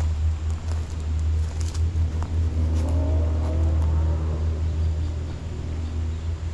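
Steady low rumble, with a motor vehicle's engine rising and then falling in pitch around the middle as it passes.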